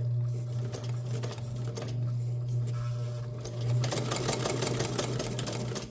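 Hamilton sewing machine running a straight-stitch test seam: a steady motor hum under a fast mechanical chatter from the needle. The chatter grows louder about four seconds in, and the machine stops abruptly near the end.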